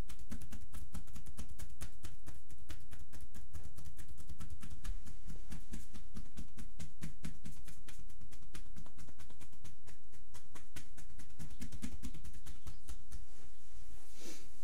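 Percussive massage (tapotement): hands striking the bare shoulder and side of the neck in a rapid, even rhythm of slaps, several strikes a second, which stops shortly before the end.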